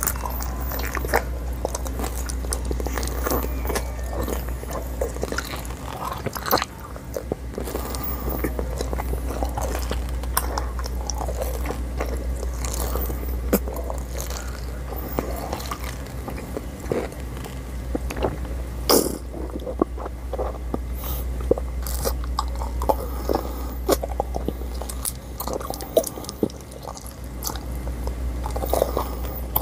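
Close-miked biting and chewing of Xylitol chewing-gum pellets: irregular crisp crunches as the pellets crack between the teeth, mixed with wet chewing. A steady low hum runs underneath.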